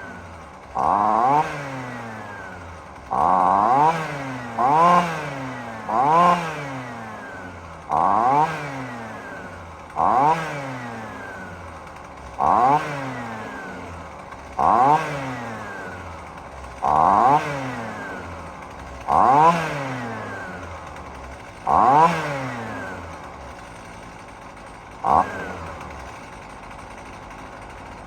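The Husqvarna 128LD string trimmer's small two-stroke engine is blipped to full throttle about a dozen times, roughly every two seconds, and each rev falls back to idle. Over the last few seconds it idles steadily: the trimmer that would not run is now running and returning to idle.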